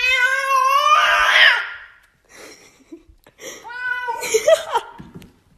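A cat yowling: one long wail of about a second and a half at the start, then a shorter yowl about three and a half seconds in.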